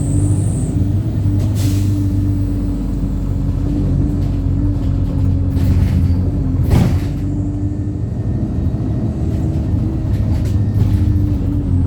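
Wright StreetLite single-deck bus under way, its engine running with a steady drone and a steady whine, with a few light rattles and one short sharp burst of noise about seven seconds in.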